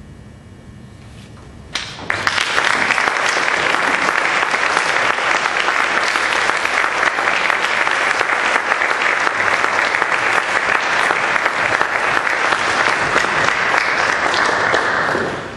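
Audience applause, breaking out suddenly about two seconds in, holding steady, then dying away near the end.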